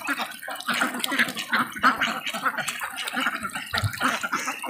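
Large flock of domestic ducks feeding at the water's edge: a dense, continuous chatter of many bills dabbling and slurping in shallow water and mud, mixed with the birds' low calls.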